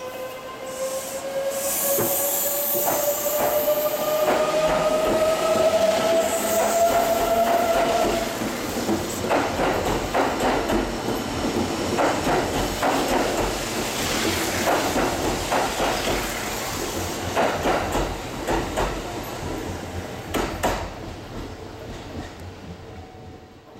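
Kintetsu 23000 series Ise-Shima Liner electric train pulling away. The traction motors whine, rising in pitch over the first eight seconds or so as it accelerates. Then the wheels clatter over the rail joints as the cars pass, and the sound fades away near the end.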